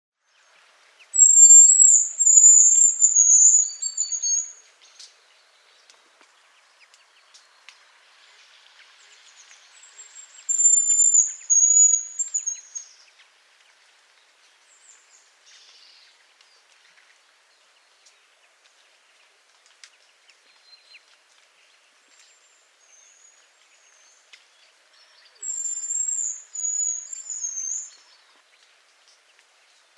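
Hazel grouse giving its autumn whistle: three phrases of very high, thin whistled notes, each a few seconds long and falling slightly in pitch, near the start, around ten seconds in, and near the end.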